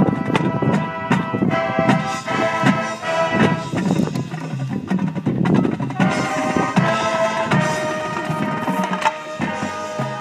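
Marching band playing its field show: brass chords over drums and percussion, with a fresh loud brass entry about six seconds in.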